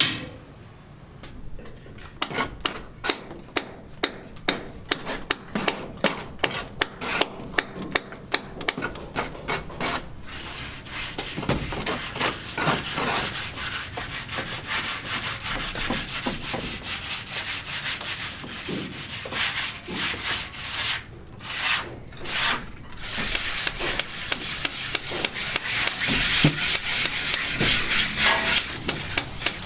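Hand-tool work on a building site. First comes a run of fast, even knocks, about four a second. Then a rasping, scraping noise that gets louder and harsher with regular strokes near the end.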